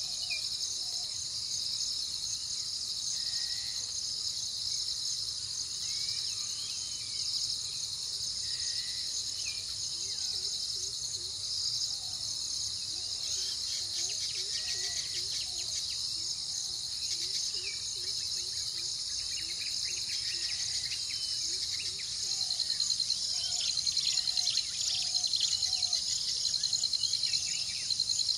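Dense insect chorus, a steady high-pitched chirring, with scattered short bird calls and chirps over it. About three-quarters of the way through, a louder, fast-pulsing insect trill joins in.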